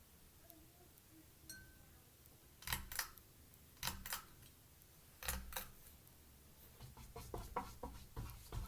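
Sharp clicks with dull knocks: three pairs of clicks spaced about a second apart, then a quick run of lighter clicks near the end.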